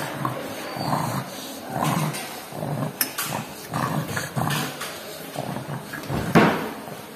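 A pug breathing noisily, with rough breaths coming in an uneven rhythm about once or twice a second: the obstructed breathing of brachycephalic obstructive airway syndrome.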